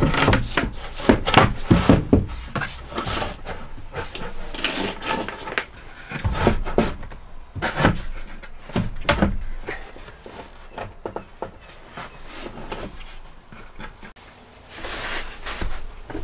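A sheet of 3/4-inch plywood being handled and fitted into a van's wall framing: a run of wooden knocks and thumps with scraping and rubbing, busiest in the first half and thinning out later.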